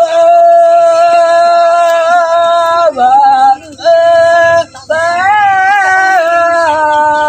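A man singing loudly in long held notes that waver and slide in pitch, in several phrases broken by short breaths.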